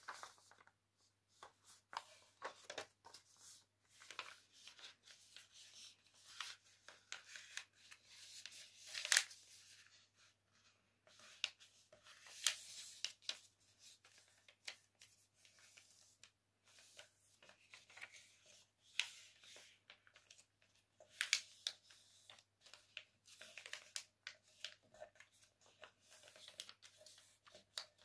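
A sheet of paper being folded by hand into a paper airplane: irregular soft rustles and crisp swipes as fingers crease the folds flat against the table, with a few louder swipes, over a faint steady low hum.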